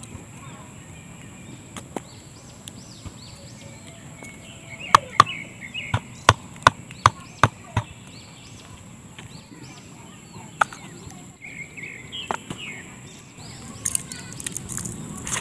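A run of about eight sharp wooden knocks in quick succession, starting about five seconds in, as a stick is struck, with a few single knocks on either side and birds chirping faintly. Near the end a rough rustling scrape as coarse salt is rubbed onto the fish.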